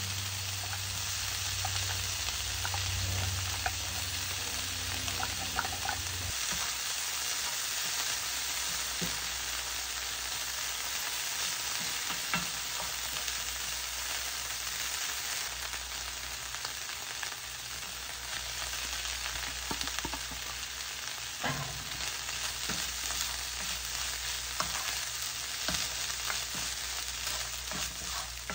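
Canned tuna and diced onion sizzling in a frying pan, with a wooden spatula knocking and scraping now and then as the food is stirred. A low hum stops about six seconds in.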